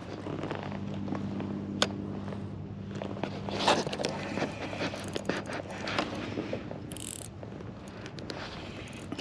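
Daiwa spinning reel being cranked and the rod handled while jigging: scattered clicks and scrapes over a low steady hum, with a sharp tick about two seconds in and a busier stretch a few seconds later.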